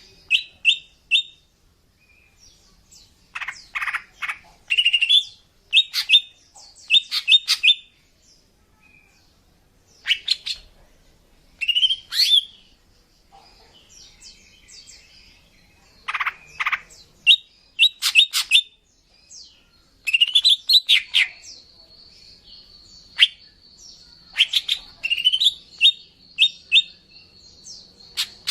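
A female greater green leafbird (cucak ijo) calling: irregular bursts of sharp chirps, quick rising notes and short rapid runs, with brief pauses between. A thin steady high tone runs beneath the calls during the last third.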